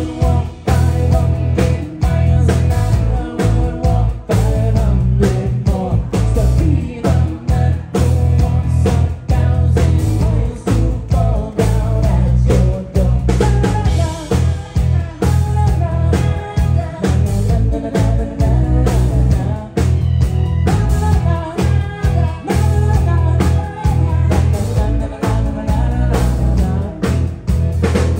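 Live band playing an upbeat rock song: drum kit, bass guitar, strummed acoustic guitar and keyboard, with a woman singing.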